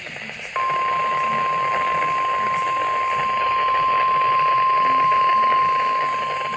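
NOAA Weather Radio 1050 Hz warning alarm tone: a single steady, unbroken beep that switches on abruptly about half a second in and holds, heard over the radio receiver's hiss. It is part of a required weekly test.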